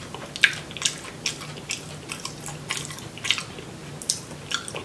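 Close-up wet chewing of saucy boiled crawfish: irregular smacking, squelching mouth clicks, two or three a second, over a faint steady low hum.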